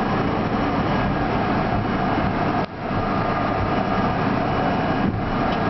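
R32 subway car running into a station, heard from inside the front car: a steady rumble of wheels on rail and car noise, with a sudden brief dip in loudness near the middle.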